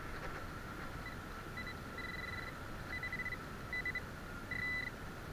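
Handheld metal-detector pinpointer beeping on and off in short and longer pulses as it is moved around in a dug hole, signalling a buried metal target. A faint steady high tone sits underneath.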